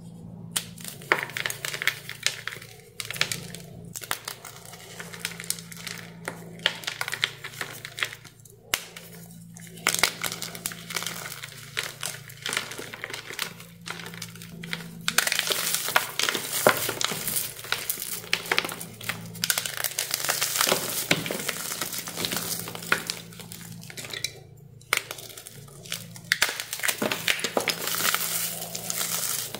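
Crunchy glitter bombs being crushed, a dense crackling crunch that comes in bouts with short pauses and is thickest in the middle, over a faint steady low hum.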